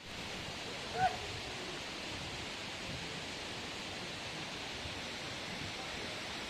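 Steady rushing outdoor noise, even and unbroken, with one brief pitched sound about a second in.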